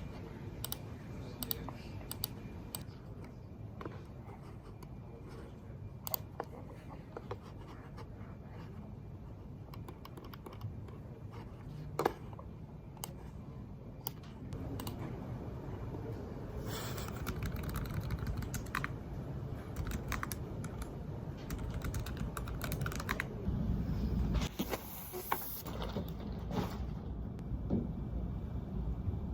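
Typing on a computer keyboard: irregular key clicks over a low steady room hum, which gets louder about halfway through.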